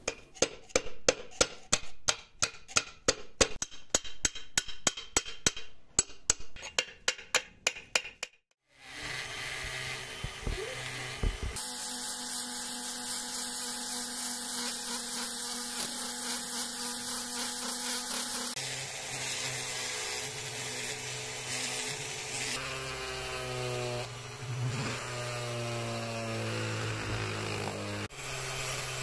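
A quick run of sharp metallic clicks, about three or four a second, for the first eight seconds. After a short break comes a rotary tool spinning a small wire wheel brush against rusty sheet steel to scrub off rust and old paint: a steady whine whose pitch shifts several times and glides up and down near the end as the tool's speed changes.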